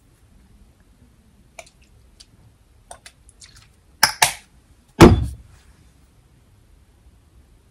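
A small plastic bottle and cotton swab handled: a few faint ticks, two sharp clicks about four seconds in, then a louder knock with a low thud a second later.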